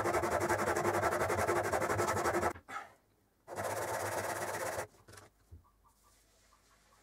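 Old railroad hammer head rubbed quickly back and forth by hand on abrasive paper, a loud, even rasping rhythm that stops about two and a half seconds in. After a short pause there is another second or so of rubbing, then only light handling noises.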